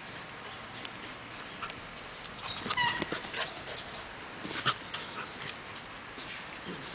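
Borzoi puppies, almost three months old, scuffling at play, with a short high-pitched cry about three seconds in and scattered scrapes and clicks. A single sharp knock is the loudest sound, just before five seconds in.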